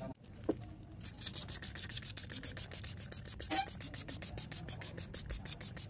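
Small hand spray bottle misting water onto the rockscape, its trigger pumped rapidly to give quick hissing spurts, several a second, starting about a second in.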